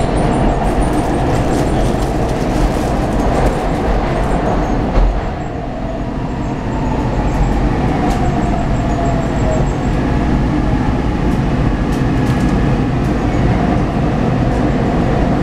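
Inside a SEPTA Market–Frankford Line elevated train car running along the track: a steady rumble and rattle, with a thump about five seconds in and a falling whine a little later.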